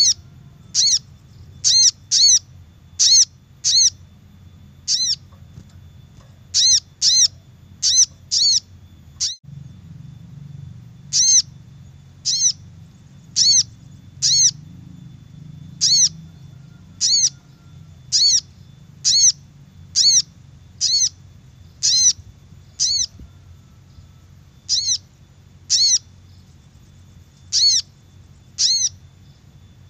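Recorded call of a sogon (sogok ontong), a tit-babbler, used as a trapping lure: short, loud, high notes that rise and fall, repeated about once a second in runs with short pauses.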